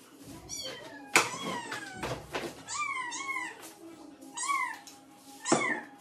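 A cat meowing repeatedly: about five meows, each rising and then falling in pitch. A sharp knock about a second in is the loudest sound.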